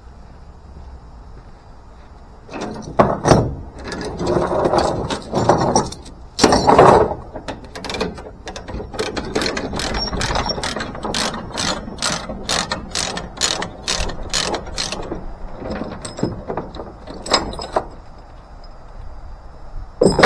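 Ratchet tie-down on a tractor trailer being worked, a long steady series of ratchet clicks at about three a second, after a few seconds of irregular rattling and clanking. A sharp knock near the end.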